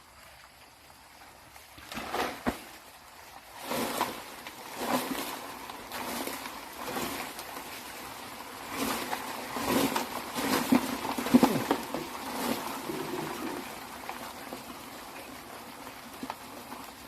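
Irregular splashing and knocking in water as rice-field crabs and fish are gathered, loudest a little past the middle and dying down to a steady light hiss near the end.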